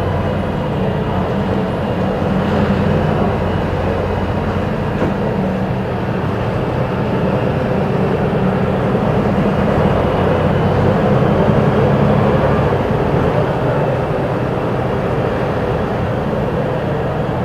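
Volvo B290R city bus with a Voith automatic gearbox running under way, a steady diesel engine drone over road and running noise.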